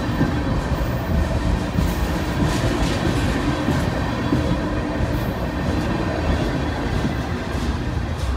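Freight cars of a long CN freight train rolling past close by: tank cars and lumber-laden centerbeam flatcars, their steel wheels running on the rails with a steady low rumble and clatter.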